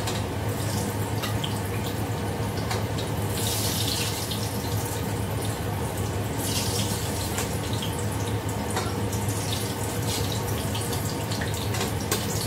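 Battered pieces frying in hot oil in a wok on a gas stove, a steady hiss over a constant low hum, with brighter bursts of hiss a few times as pieces are lifted out with a ladle.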